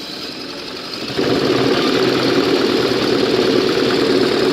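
Butterfly sewing machine running fast to wind thread onto a bobbin, a dense steady mechanical whirr; it gets louder about a second in and then holds steady.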